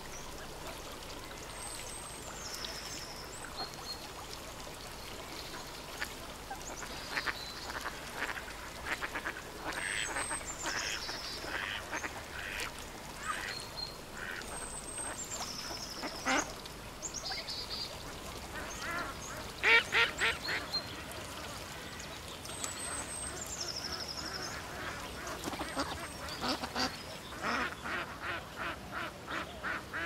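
Ducks quacking, first in scattered calls, then in a fast, even run of quacks near the end. A small bird's high, thin call that drops in pitch repeats a few times in the background.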